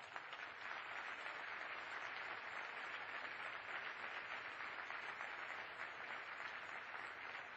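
Audience applauding steadily, the clapping building over the first second.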